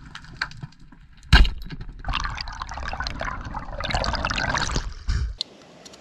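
Underwater, a band-powered speargun fires with one loud, sharp crack about a second in. Then comes a few seconds of crackling, bubbling water noise as the speared fish is brought in. The underwater sound cuts off abruptly near the end.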